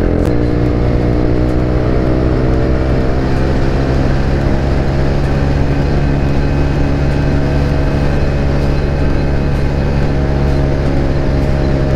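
TVS Ntorq 125 scooter's single-cylinder four-stroke engine at full throttle through an aftermarket Akrapovic exhaust with a dB killer fitted, accelerating hard. The pitch climbs for about the first second, then holds at high revs while the road speed keeps rising.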